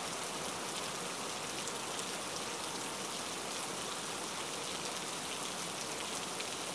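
A steady, even hiss like light rain, with faint light ticks of a knife slicing red chillies on a wooden cutting board.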